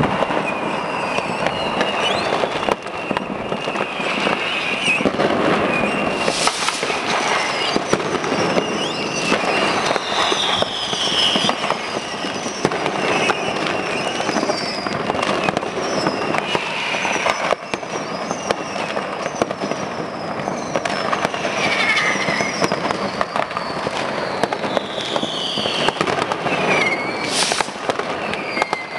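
Dense, unbroken New Year's Eve street fireworks: a constant crackle of firecrackers and bangs, with many short whistles from rockets and whistlers sliding in pitch over it.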